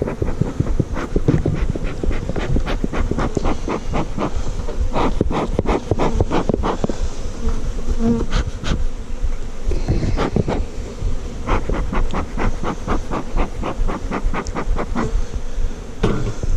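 Honeybees buzzing thickly around the microphone, with many single bees zipping close past it one after another. The colony is agitated and riled up from being disturbed.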